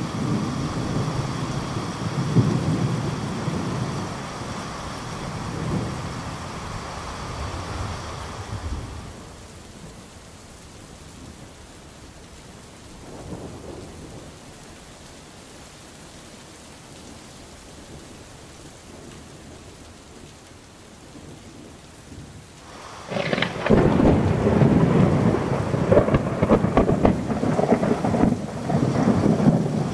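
Thunderstorm: rain falling with rolling thunder. The thunder dies away after about nine seconds, leaving steadier, quieter rain, until a sudden loud peal of thunder about 23 seconds in that rolls on to the end.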